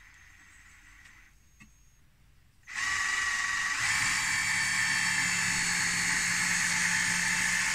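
Cordless drill-driver driving a screw into a wooden frame. It runs steadily for about five seconds, starting a little under three seconds in, picks up speed a second later, and stops suddenly at the end.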